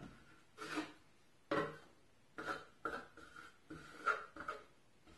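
A trowel drawn in short strokes over flashing tape bedded in wet liquid-applied air/water barrier: a series of about eight brief scraping, squeaky rubs, roughly one every half second to second, as the tape is worked down tight.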